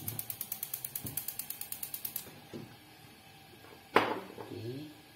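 Gas stove burner's igniter clicking rapidly, about ten clicks a second, stopping about two seconds in as the burner is lit under a pot of water for boiling cassava. A single sharp knock about four seconds in.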